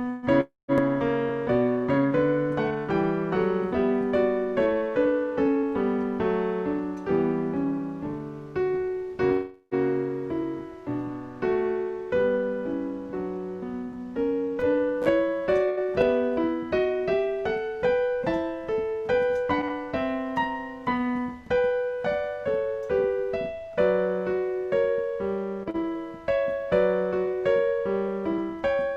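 Solo piano playing a flowing piece, a steady run of notes with no voice. The sound cuts out for a split second twice, about half a second in and again near ten seconds.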